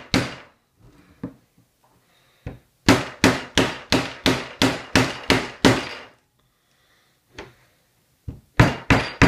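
White rubber mallet striking the end of an aluminium extrusion, driving it through a tight square hole in a plastic part. One blow, a pause, then a fast run of about ten even blows, three to four a second, and a few more near the end.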